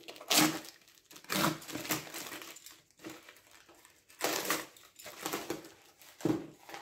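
Utility knife slicing through plastic stretch wrap and packing tape along the edge of a cardboard box, in a series of short scraping strokes with the plastic crinkling.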